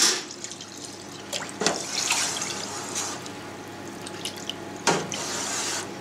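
Water poured in a steady stream from a stainless steel pot into a stainless steel tray of cheese curds and whey, splashing continuously, while a wooden paddle stirs the curds. This is the curd-washing step, adding warm water to lower the curd's acidity. A couple of sharp knocks stand out, the loudest near the end.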